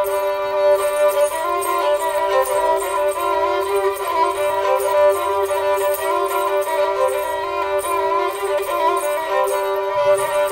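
Instrumental Greek folk music from Thrace, the tune of a Christmas carol (kalanta): a bowed fiddle plays the melody over a steady held note.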